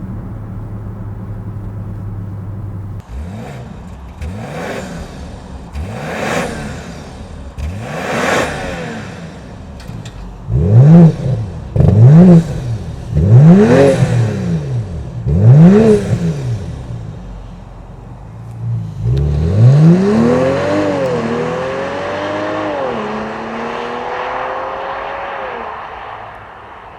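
BMW X5 50e's turbocharged inline-six through a DCE Parts V2 exhaust with its valves open: idling, then a series of about eight quick free-revs, the last four the loudest. The SUV then accelerates away, engine pitch climbing and dropping back at two upshifts, with a rushing noise that fades as it goes.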